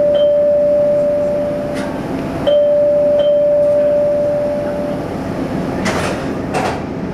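Door-closing warning tone on an MBTA Blue Line Siemens subway car: two long steady mid-pitched beeps, each about two and a half seconds, over the car's steady hum. Two sharp knocks follow near the end as the doors shut.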